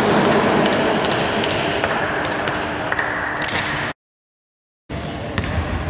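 Arena scoreboard buzzer marking the end of the third quarter: a long, harsh buzz of about four seconds that cuts off suddenly, followed by a second of silence and then faint hall noise.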